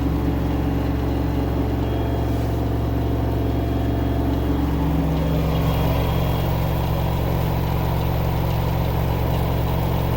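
LG 10 kg front-load washing machine running, a steady low hum with a rattle that sounds like pebbles rolling around inside, which the owner takes for a motor problem. The pitch of the hum changes about halfway through.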